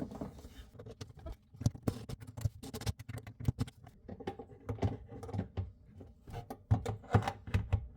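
Irregular small clicks and knocks of metal soft-close cabinet hinges and a wooden cabinet door being handled and refitted, the hinges turned the right way round after being put on backwards.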